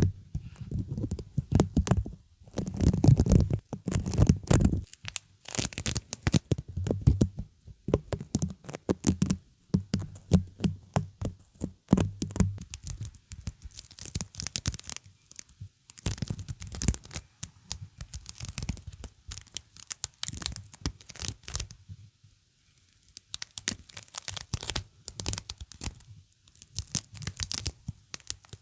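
Something sticky being touched and peeled away close to the microphone: rapid, irregular crackling and tearing clicks, with a short lull about two-thirds of the way through.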